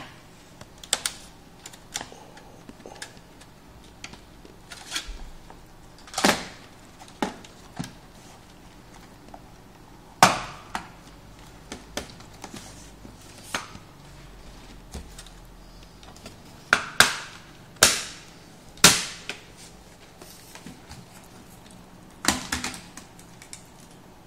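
Plastic snap clips of an Acer TravelMate 7520 laptop's top cover clicking loose one after another as the cover is pried off the base. The sharp snaps are spread irregularly, with the loudest three in quick succession in the second half and softer clicks and rattles of plastic between.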